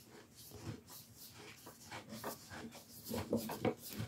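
Sections of a shelf pole being twisted together by hand at a stiff threaded plastic joint: a run of small rubbing, creaking and clicking noises, busier in the last second.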